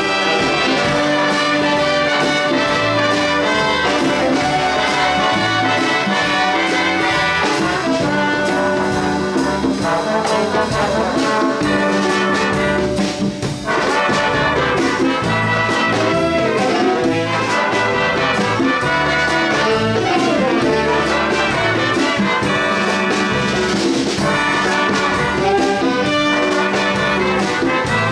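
Big band playing, its brass section of trumpets and trombones holding chords over a moving bass line, with a brief break near the middle.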